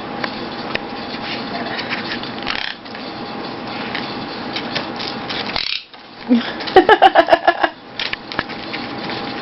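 A bird calling in a fast run of harsh squawks about seven seconds in, lasting about a second, over a steady background hum.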